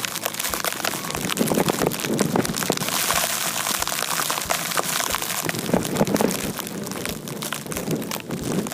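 Blizzard snow blowing against the microphone: a dense, crackling hiss like rain, with low gusty thumps now and then.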